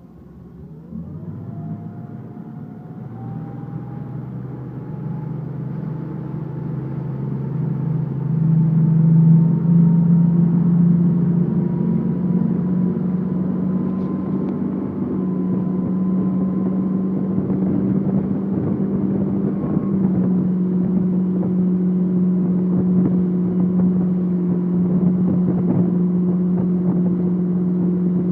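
Motorboat engine speeding up, its pitch rising over the first few seconds and growing louder for about nine seconds, then running steadily at speed, with rushing water beneath it.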